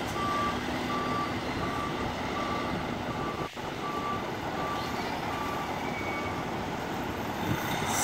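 Forklift's reversing alarm beeping at an even pace, about one beep every 0.7 s, and stopping near the end. A steady engine and machinery noise runs underneath.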